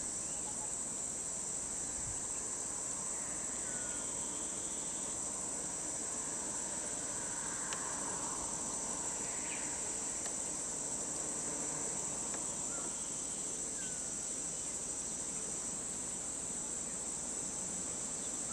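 Steady, high-pitched chorus of insects shrilling without a break, with a couple of faint short chirps.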